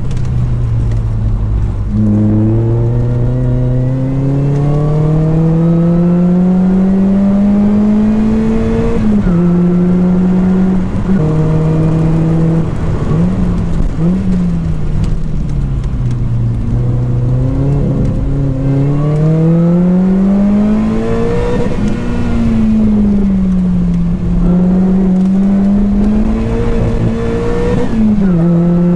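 Lotus Elise 220 Sport's supercharged 1.8-litre four-cylinder engine, heard through a 2bular H1 exhaust silencer, driven hard on track. The revs climb slowly for several seconds, drop suddenly at gear changes, and rise and fall repeatedly through the corners.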